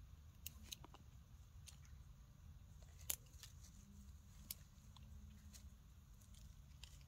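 Near silence: a low steady background rumble with a few faint sharp clicks, the sharpest about three seconds in.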